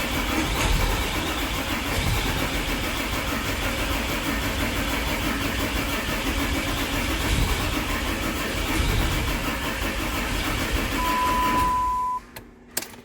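6.7 Cummins turbo-diesel being cranked over on the starter for about twelve seconds without catching, a no-start; cranking stops near the end. A steady beep sounds about a second before the cranking stops.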